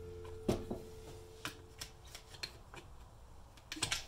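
Light metallic clicks and scrapes of a steel pick working at a washer on the gearbox shaft in the open crankcase of a 1975 Husqvarna 360 CR engine. The loudest click comes about half a second in and a quick run of clicks near the end. A steady low hum fades out over the first second and a half.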